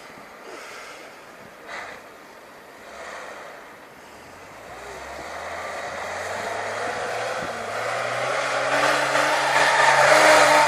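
A motor vehicle's engine, its note rising in pitch and growing steadily louder from about three seconds in as it accelerates or draws closer.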